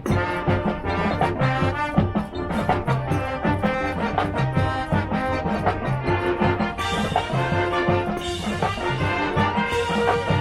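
High school marching band playing a loud brass passage over a steady drum beat, with a bright crashing wash entering twice in the second half.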